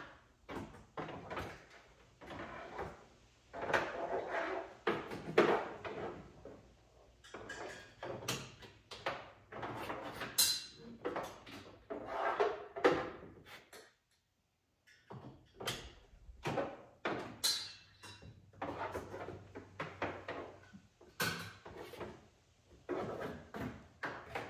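Irregular knocks, clicks and rustling of hands working in and around a side-by-side UTV, handling panels and hardware while searching for a dropped nut. The sound breaks off completely for about a second midway.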